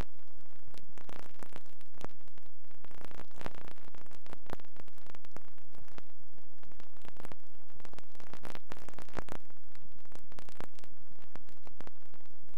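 Steady hiss with irregular crackles, like static, at an even level.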